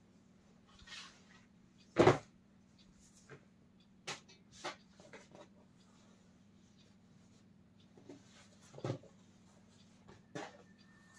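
Handling noise from jeans being spread and held on a tabletop: scattered soft rustles and short knocks, the loudest a thump about two seconds in, over a faint steady hum.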